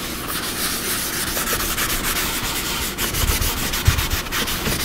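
Neutral wax being rubbed onto a plywood bench top in quick, continuous scrubbing strokes.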